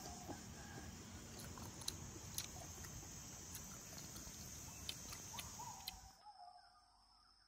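Tropical forest ambience: a steady high-pitched insect drone with a few short bird calls and scattered light clicks, fading out about six seconds in.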